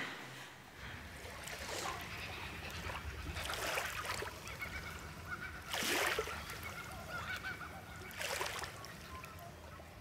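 Ambient soundscape: four rushing swells of noise a couple of seconds apart over faint held high tones and a low hum, fading near the end.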